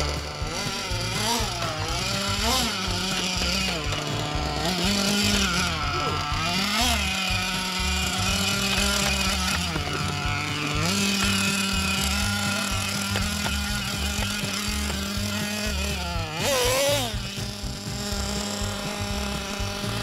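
Small engine of a fuel-powered remote-control buggy, revving up and down in repeated short blips with a steady idle between them.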